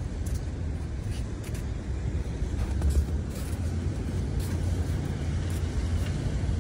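Steady low outdoor rumble, with a brief louder swell about three seconds in.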